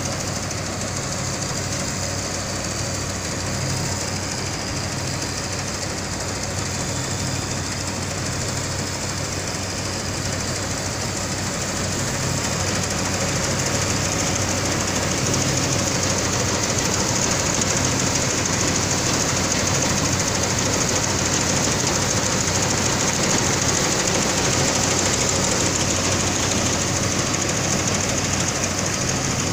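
Vintage Fahr MDL self-propelled combine harvester running under load while cutting and threshing wheat: a steady mechanical drone of engine and threshing machinery. It gets louder about halfway through as the machine comes closer.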